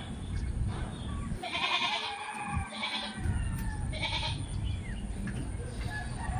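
Goats bleating off-camera: three calls, the longest about a second and a half in, then two shorter ones about a second apart.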